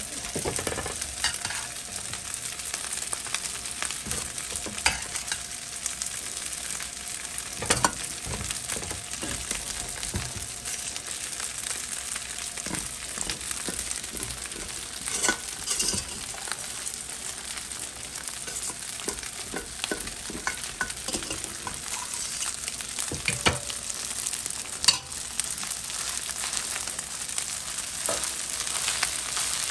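Cooked rice frying in oil in a hot frying pan, a steady sizzle, with scattered knocks and scrapes of a spoon as more rice is tipped in and stirred.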